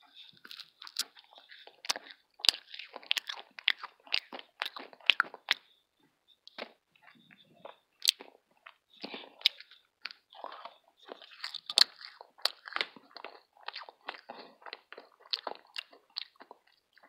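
Close-mic crunching and chewing of pink UFO candy: many sharp, crisp crackles as it is bitten and chewed, with a short lull about six seconds in.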